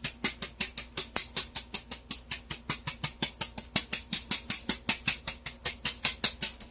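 Tin flour sifter being cranked, its mechanism clicking in a rapid, even rhythm of about seven clicks a second as flour sifts through.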